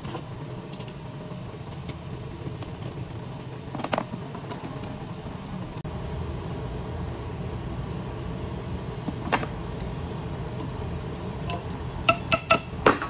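A steady low background rumble with a few isolated sharp clicks, then near the end a quick run of four or five ringing metallic taps as pliers strike the steel shaft of the fan motor.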